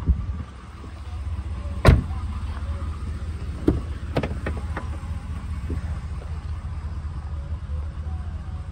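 A pickup truck door shutting with one thump about two seconds in, then the door handle clicking several times as it is pulled, over a steady low rumble.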